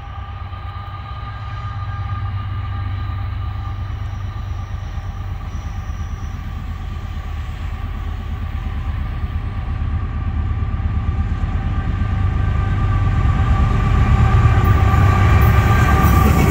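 Approaching freight train led by a GE AC44C6M diesel-electric locomotive: a low rumble with a steady whine in it grows steadily louder as it nears. It is loudest near the end as the locomotive comes alongside, with wheel noise coming in.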